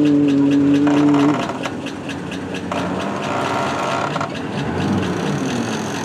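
A loud, steady horn tone for about a second and a half at the start, then the running of a pickup truck hauling a houseboat on its trailer up a wet boat ramp.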